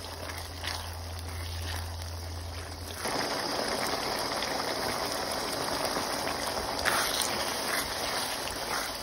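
Tomato-based ground-pork sauce simmering in a pan while a spatula stirs through it, with a few light scrapes. About three seconds in the sound grows fuller and louder.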